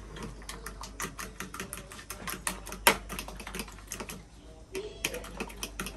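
A quick, irregular run of light clicks and taps at several a second, with one sharper knock about three seconds in and a brief lull a little past four seconds.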